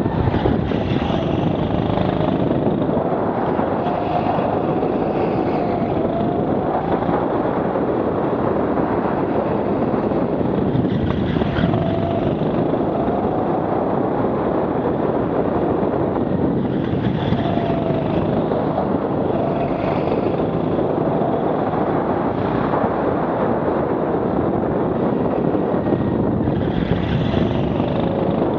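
Rental go-kart running at speed through a lap, its engine note rising and falling repeatedly through the corners, with heavy wind rush on the helmet camera.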